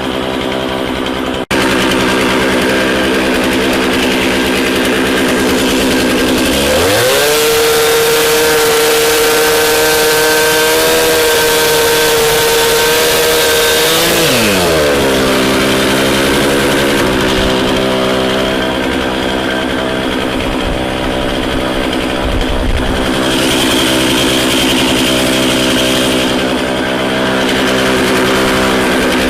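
Chainsaw idling, then revved to full throttle about seven seconds in, held at high revs for about seven seconds, and let back down to idle.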